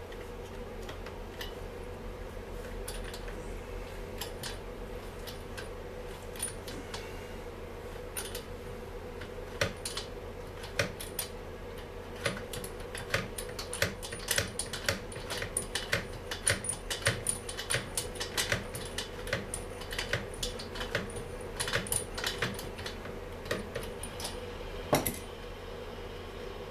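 Light metallic clicks and taps of a screwdriver and small parts being handled on a Stihl MS 250 chainsaw, sparse at first and coming thick and fast in the second half, over a steady hum.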